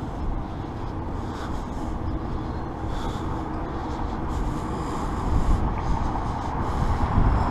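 Wind rumbling on the microphone over outdoor street noise, with no clear single source, growing a little louder in the last few seconds.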